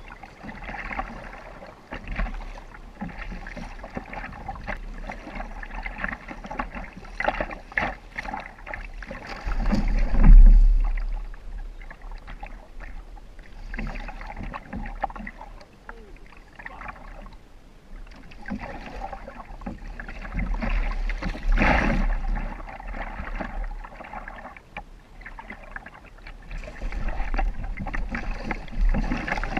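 Kayak paddle strokes splashing and water washing against the hull of a Karma RG kayak on choppy water, with a steady low wind rumble on the microphone. It swells loudest about ten seconds in and again a little after twenty seconds.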